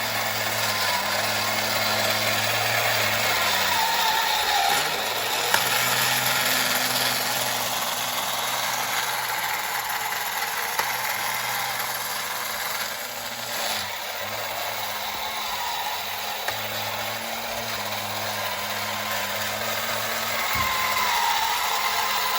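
Battery-operated tin toy running: a small electric motor and gears whirring with a rattle, the pitch dipping briefly a couple of times.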